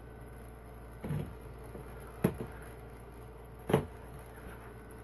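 Faint room tone with three short knocks or thumps, about one, two and a quarter, and three and three-quarter seconds in, from someone moving about and bumping things close to the microphone.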